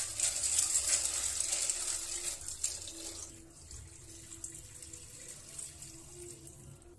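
Kitchen tap running into a steel pot of uncooked pasta in a stainless steel sink as the pasta is rinsed by hand. About three seconds in it drops to a much quieter thin stream of rinse water poured from the tipped pot into the sink drain.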